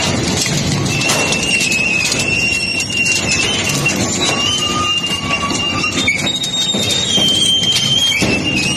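Industrial shredder tearing through scrap, with a high metal squeal that wavers in pitch over a steady grinding noise and scattered sharp cracks and snaps.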